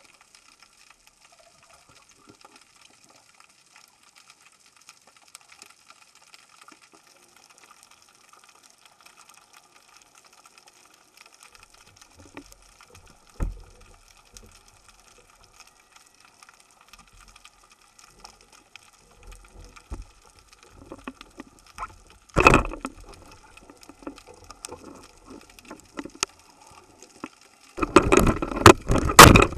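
Water sounds from a spearfishing dive. A faint steady hiss with scattered small clicks runs under two sharp knocks, about 13 and 22 seconds in. Loud, choppy splashing starts about two seconds before the end.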